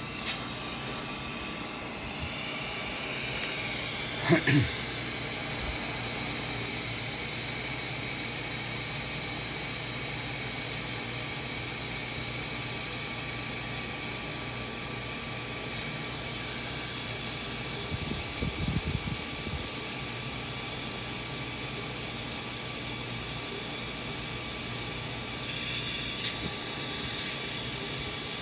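Compressed air hissing steadily through an ARB tire inflator into a large aired-down off-road tire, fed by an Ingersoll Rand T30 shop compressor. It starts with a click as the inflator opens, and about 25 seconds in there is a brief dip and another click.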